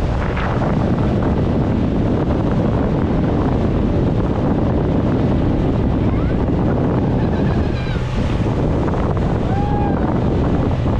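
Wind buffeting the microphone over the rush of water from a moving motorboat, with a low steady engine hum coming back in the last few seconds.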